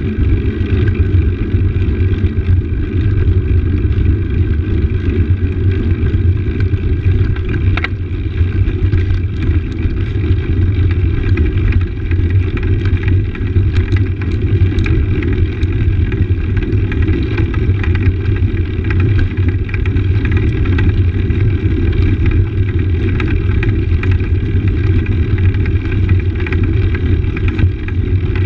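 Road bike rolling fast over stone paving: a steady low rumble of the tyres and rushing wind on the handlebar-mounted camera, with scattered rattling clicks from the bike jolting over the stones.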